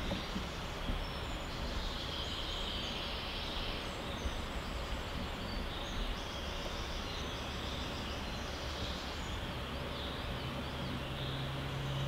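Outdoor woodland ambience: a steady background hiss over a low rumble, with faint high chirps from birds or insects coming and going.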